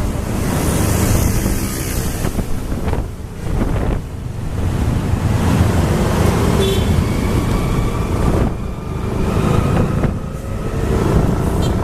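Road and engine rumble from riding fast in traffic, with wind buffeting the microphone.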